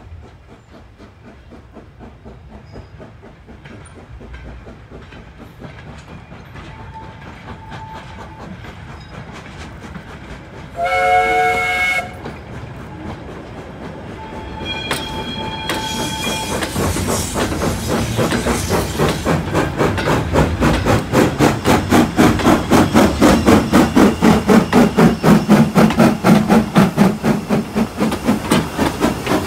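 A steam locomotive and its train draw closer, with a rumble that builds slowly. About eleven seconds in comes one loud steam-whistle blast about a second long. Then the locomotive's exhaust beats and the wagons' wheels grow into a rapid, even rhythm that gets louder as the train comes close.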